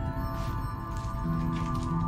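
Background music: held notes that change every second or so.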